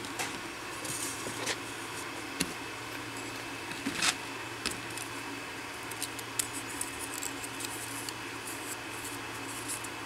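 Hands handling a cigarette rolling machine and a booklet of paper filter tips: scattered rustles of paper and light clicks, with one sharper click about four seconds in.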